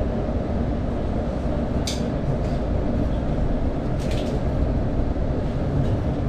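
Interior running noise of a London Overground Class 710 electric train moving along the line: a steady low rumble of wheels on rails, with two brief clicks, about two and four seconds in.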